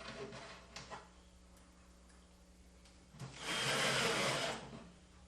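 Cordless drill-driver whirring for about a second and a half, driving a screw into a wooden panel, after a few light clicks of handling early on.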